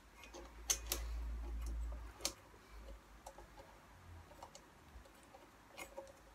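Scattered light clicks and taps of hands and a tool working the ignition coil and its mounting screws on a Briggs & Stratton engine, with a low rumble in the first two seconds.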